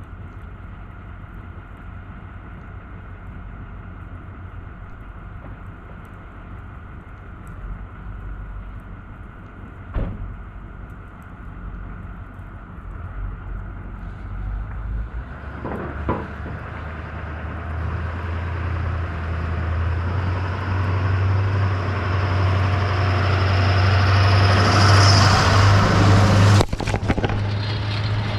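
Diesel engine of an International TerraStar plow truck coming closer and growing steadily louder, with tyre noise on the snowy road, as the truck drives right over the camera. Near the end comes a sharp smack as the truck's hanging mud flaps hit the camera, and the engine sound then drops away.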